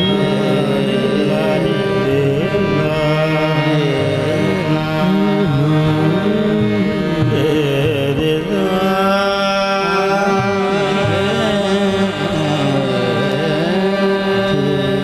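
Qawwali music: a lead voice sings a long winding melodic line over a steady harmonium drone.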